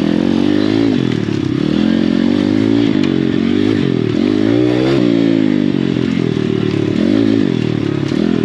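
Pit bike engine, a small single-cylinder four-stroke, heard onboard, revving up and down several times as the throttle is opened and closed over a tight, rough dirt trail.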